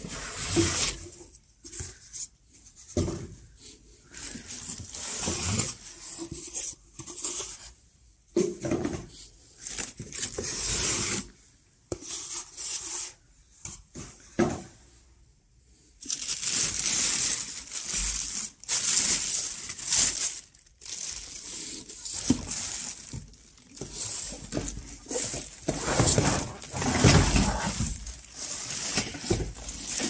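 Clear plastic wrapping crinkling and rustling in irregular bursts, with the cardboard box scraping and bumping, as a wrapped vacuum cleaner is handled and lifted out of its box. There is a brief lull about halfway through.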